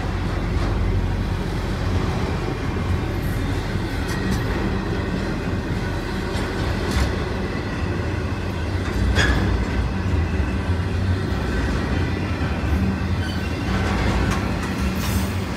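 Intermodal freight train, flatcars loaded with truck trailers, rolling past close by: a steady rumble of steel wheels on rail, with a few sharp clicks along the way.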